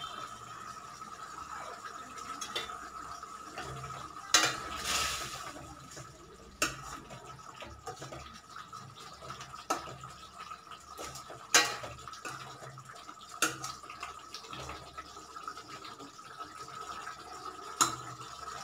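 Metal ladle stirring paneer into simmering gravy in a stainless steel kadai. It scrapes the pan and knocks against its side about six times, with a faint steady whine underneath.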